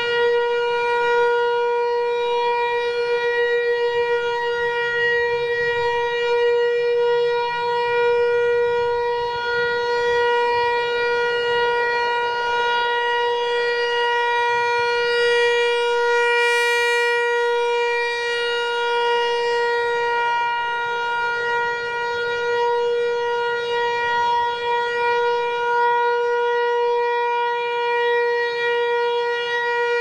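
Federal Signal Equinox electronic siren sounding a steady alert tone during its test, its pitch holding level throughout. The tone gets brighter about sixteen seconds in as the rotating horn swings around.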